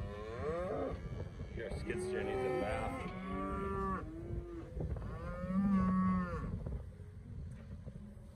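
Several cattle mooing in overlapping calls, one after another, the longest and loudest about two-thirds of the way through. A skid steer's engine runs low underneath.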